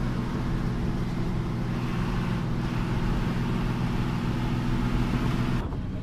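Bus engine droning steadily at cruising speed under an even hiss of road noise, heard from inside the cabin. Near the end the sound cuts abruptly and the hiss drops away.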